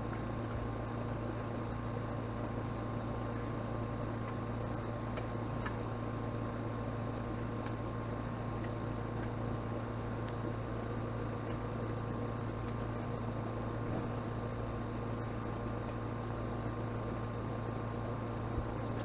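A steady mechanical hum, unchanging in level, with a few faint ticks.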